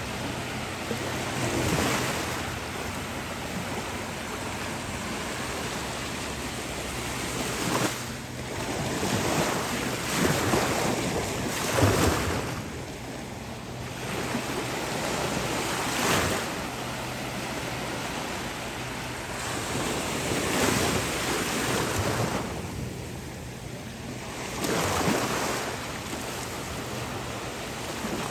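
Gentle ocean surf washing onto the beach, swelling every few seconds as small waves break, with wind buffeting the microphone.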